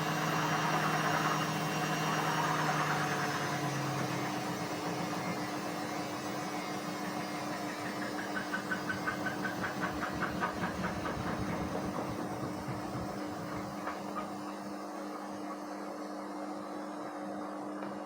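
Indesit WISN 101 washing machine running its rinse cycle: a steady motor hum as the drum turns, with a rhythmic pulsing of about four beats a second in the middle. The low note of the motor drops out about four seconds in, and the sound grows quieter toward the end.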